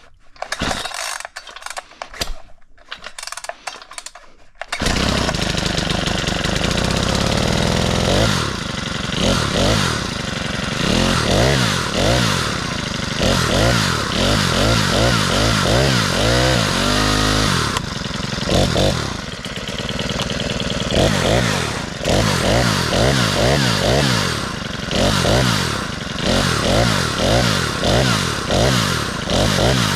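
Small 42cc four-stroke chainsaw cold-started with the choke out. A few clicks and knocks, then the engine catches on one pull about five seconds in and runs, revved up and down over and over.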